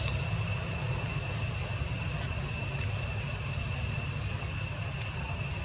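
Insects trilling steadily at one high pitch over a steady low rumble, with a few faint clicks.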